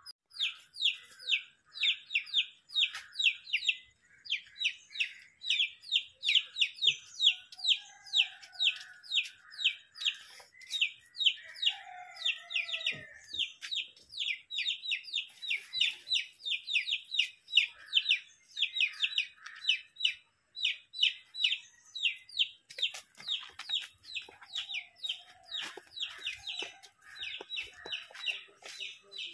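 Backyard chickens: a steady stream of rapid, high-pitched chick peeps, several a second, with a few lower hen calls now and then.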